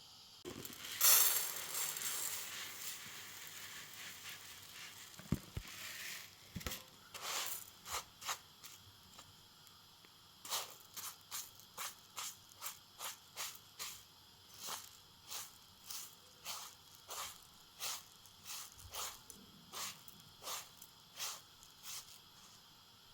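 Hand food preparation: a stretch of tearing and crunching with a few knocks, then a steady run of short cutting strokes, a little under two a second, that stops near the end.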